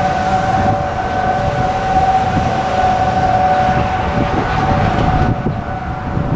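Civil defense warning siren sounding its steady Alert tone, a chord of held tones that neither rises nor falls, over a low rumbling noise.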